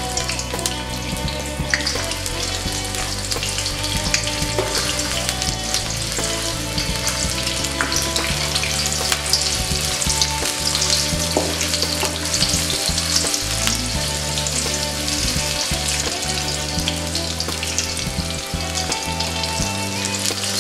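Sliced shallots sizzling and crackling in hot oil in a wok while a spatula stirs and scrapes them around the pan. They are being sautéed until they just begin to wilt.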